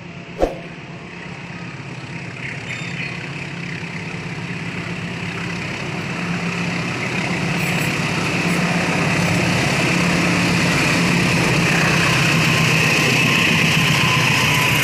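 Diesel-electric locomotive approaching at speed with a train of passenger coaches and running past, its engine drone and wheel-on-rail rumble growing steadily louder until the coaches pass. A single sharp knock about half a second in.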